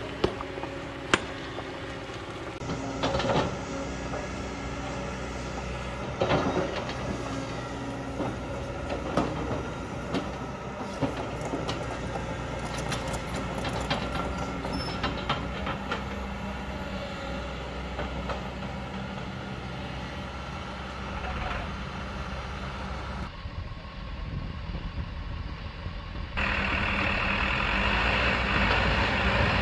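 Kobelco hydraulic excavator's diesel engine running steadily while it digs and loads rock, with scattered sharp knocks and clanks of stone against the bucket. About 26 seconds in, the machine noise jumps louder and harsher.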